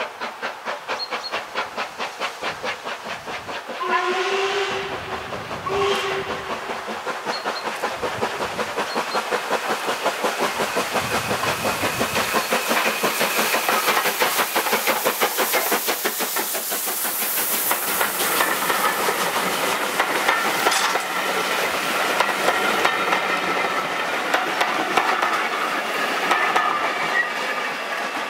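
LMS Black Five 4-6-0 steam locomotive 45305 running past with a train of coaches, its exhaust beating out a steady, rapid chuff. The whistle sounds twice about four and six seconds in, a longer blast then a short one, and the coach wheels clatter over the rail joints as the train goes by.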